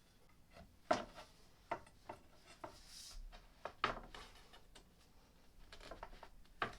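Wooden flat-pack furniture parts being handled and fitted together: irregular knocks and clicks, with a short scrape about three seconds in.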